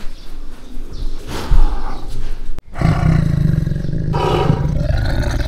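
Tiger roaring: loud, low, drawn-out roars with a sudden break about two and a half seconds in.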